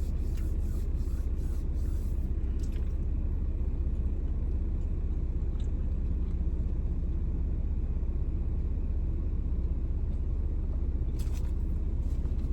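Steady low rumble of a car heard from inside the cabin, with a few faint light ticks and rustles.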